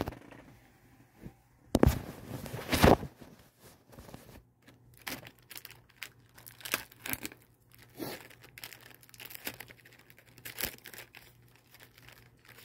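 Plastic wrapper of a Nutter Butter cookie pack being torn open, with two loud rips about two and three seconds in, then scattered crinkling of the wrapper.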